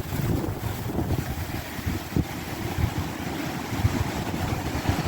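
Strong gusting wind buffeting the microphone: a continuous rush with uneven low thumps that swell and ease with the gusts.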